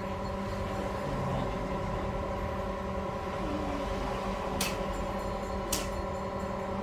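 Small electric motor of an OCA glue-removal tool running steadily, working adhesive off a phone screen's glass, with two sharp clicks about a second apart in the second half.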